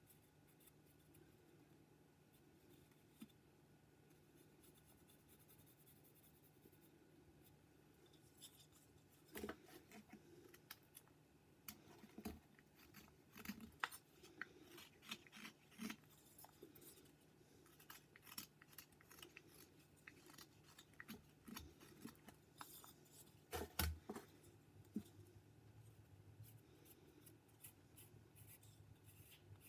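Whittling knife slicing shavings from a small wooden figure: after a quiet start, a loose run of short, crisp cuts and scrapes, with one sharper cut about three-quarters of the way through.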